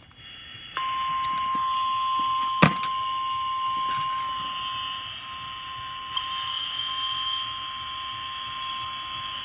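Emergency Alert System warning tone played over an FM radio: a single steady high beep that starts about a second in and holds for about nine seconds, with a hiss of radio static under it. A sharp click sounds about two and a half seconds in. The long single-pitch tone signals a National Weather Service warning, here a severe thunderstorm warning.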